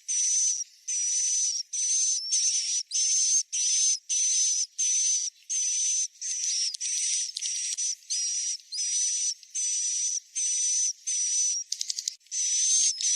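Recorded swiftlet roosting lure call ('suara inap'): a steady train of short, high, buzzy chirps, about two a second, each carrying a thin whistle-like tone. A quick rattling flutter of clicks comes near the end.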